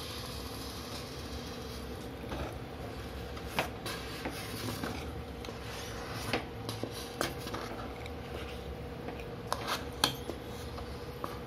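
A metal spoon stirring thick batter in a metal vessel, scraping the sides with irregular sharp clicks against the metal, the loudest about three and a half, six and ten seconds in. A steady hum runs underneath.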